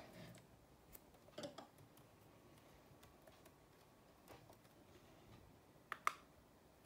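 Near silence broken by a few faint computer mouse clicks, with a sharp pair of clicks about six seconds in.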